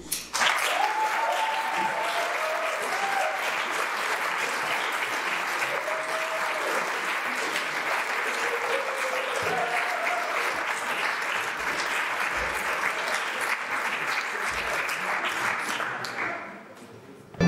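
Audience applauding, with a few voices calling out over the clapping; the applause dies away about a second before the end.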